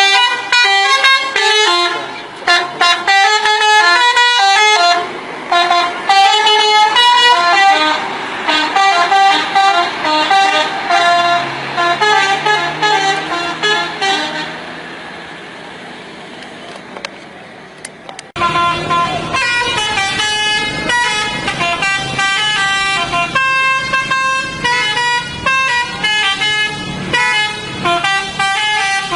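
Telolet multi-tone bus horn playing a quick melody of changing notes, over and over. About halfway through the horn fades under a low engine hum, then breaks off abruptly and another run of horn melody starts.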